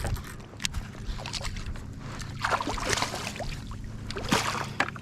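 Water sloshing against a kayak's hull, with scattered light clicks and knocks from gear being handled aboard.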